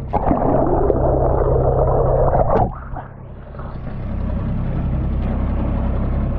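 Camera held underwater beside a moving boat: loud rushing water over the housing with a steady low drone under it. About two and a half seconds in the camera comes out of the water, and the rush drops to a quieter wash of sea and air over the same low drone.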